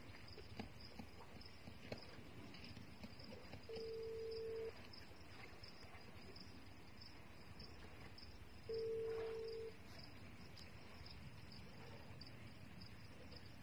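Telephone ringback tone: a steady hum near 450 Hz sounds for about a second, twice, about five seconds apart, the signal of a call ringing and not yet answered. Crickets chirp steadily behind it.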